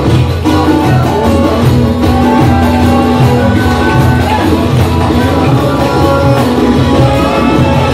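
Loud music with a steady beat and held melody notes.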